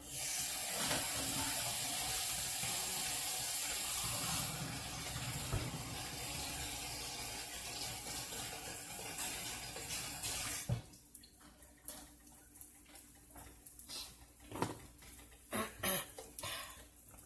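Water running steadily from a kitchen tap, turned off suddenly about ten seconds in. A few light knocks and clinks follow.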